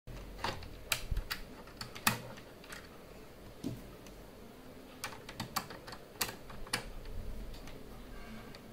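Small screwdriver tightening the screw that holds a hard drive in a PS4 Slim's hard-disk bay: irregular sharp clicks and ticks as the tool and screw are worked.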